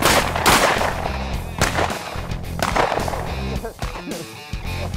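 A few shotgun blasts at a flushing pheasant, each sudden and loud with a short echo, over background music.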